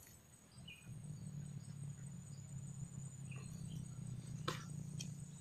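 Insects chirring steadily at a high pitch in grassy wetland, over a low steady rumble, with a single sharp click about four and a half seconds in.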